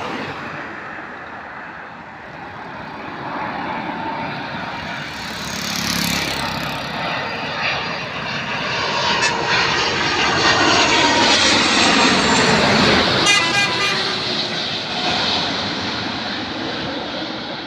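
Airbus A330-300 jet engines on final approach, a steady whine and rush that grows louder as the airliner passes low overhead, loudest about two-thirds through, with its whine falling in pitch as it goes by.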